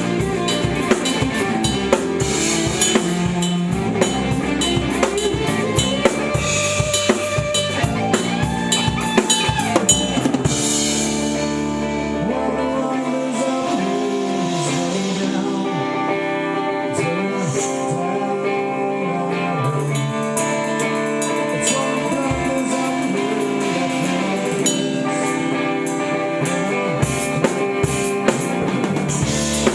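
Music with a drum kit and pitched instruments. The drums play a busy beat, drop out about a third of the way in while held and sliding melodic notes carry on, and come back near the end.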